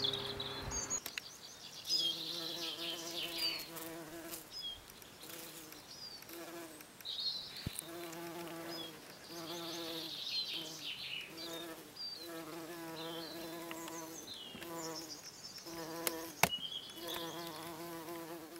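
Bumblebee buzzing in flight, the buzz starting and stopping in on-and-off bouts of about a second or two as it moves among flowers.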